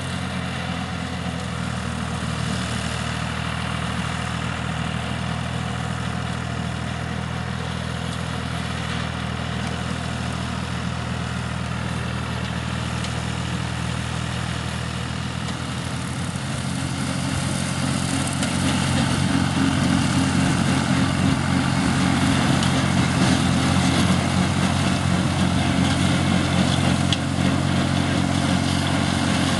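Ferrari Cobram 65 RS compact tractor's diesel engine running steadily while it mows tall grass with a slasher. About halfway through the sound gets louder and fuller and stays that way.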